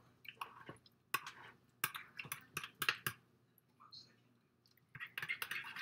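Spoon stirring seasonings into tomato sauce in a bowl, with irregular light clicks and taps of the spoon against the bowl.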